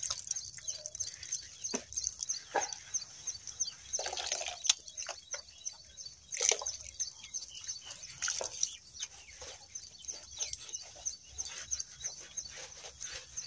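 Wet cow-dung slurry being smeared and patted by hand onto a mud wall: irregular soft wet slaps and squelches. A steady high chirping ticks on behind it.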